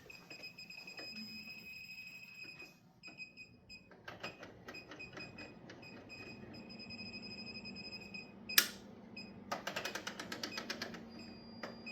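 Watchdog battery-backup sump pump alarm beeping: a steady high-pitched tone for the first couple of seconds and again briefly near the end, the signal of its backup battery. Around it are scattered clicks, a single sharp knock, and a quick run of rapid clicking near the end.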